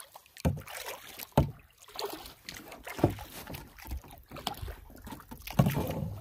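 Canoe paddle strokes splashing in lake water about every second or so, with irregular low thuds.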